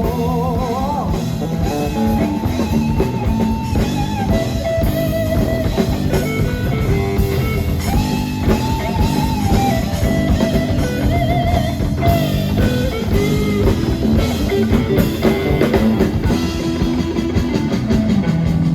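Live blues-rock band playing an instrumental passage: a lead electric guitar line with bent, wavering notes over bass guitar and drum kit.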